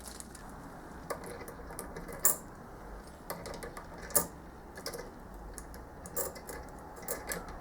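Irregular light metallic clicks and clinks of steel M12 washers being handled and fitted onto a tool post, with a couple of sharper clinks near the middle.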